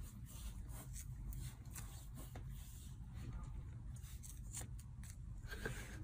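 Faint room noise with a steady low hum, and soft scratching and light clicks as a kitten paws and handles a small blue plastic object on a tiled floor.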